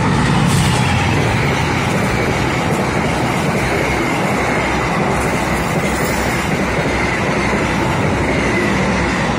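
Diesel-hauled passenger train passing close by. The locomotive's engine hum is strongest at the start, then the coaches' wheels roll over the rails with a steady loud rumble and a faint high squeal throughout.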